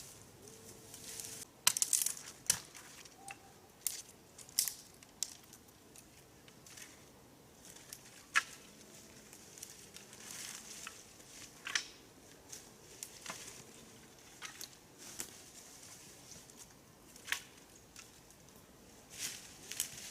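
Irregular crunching and crackling of dry forest litter, sharp snaps coming at uneven intervals, a few louder ones about two seconds in and near the middle.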